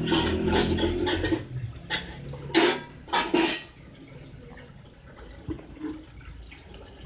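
Tap water running into a steel sink, cutting off about a second and a half in, followed by a few short loud clatters.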